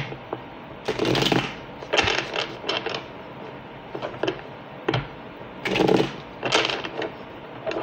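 A deck of tarot cards being shuffled by hand, in short papery bursts of flicking and slapping every second or so.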